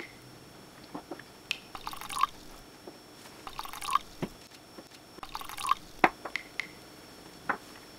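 Nail polish dripped from a small glass bottle onto water in a plastic tub: a series of small drips and light clicks, with three short scraping sounds in between.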